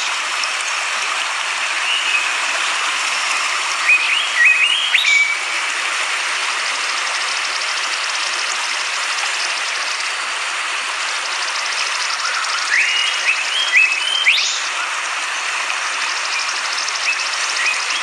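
Fast-flowing river water rushing over rocks, a steady, unbroken noise. A songbird sings short phrases of rising chirps over it three times: about four seconds in, around thirteen to fourteen seconds in, and near the end.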